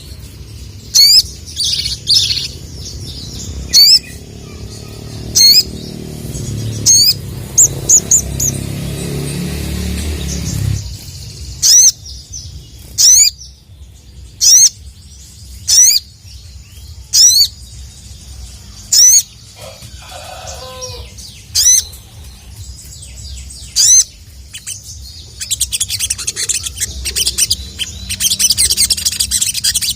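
Sogon (sogok ontong, a sunbird) calling: loud, sharp high 'cuit' notes repeated about every second and a half, breaking into a fast, dense twittering song near the end.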